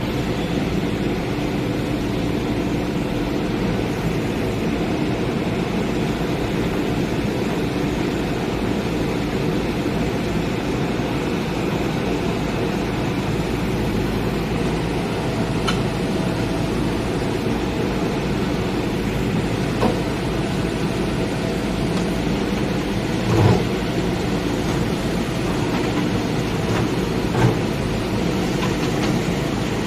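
Backhoe loader's diesel engine running steadily, with a few short knocks from the machine's work about two-thirds of the way through and near the end.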